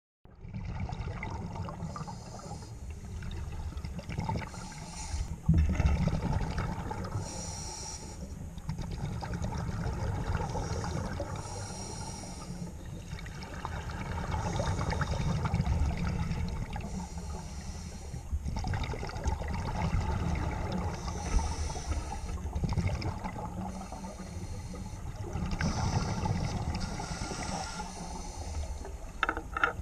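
Scuba diver breathing through a regulator underwater: a short hissing inhale every few seconds, with exhaled bubbles gurgling in between.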